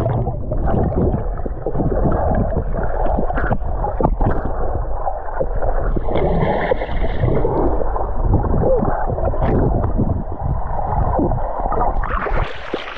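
Swimmers diving and racing underwater in a swimming pool, heard muffled as if from below the surface: dense bubbling and churning water with dull knocks and no treble. About a second before the end the sound turns bright again, as on breaking the surface.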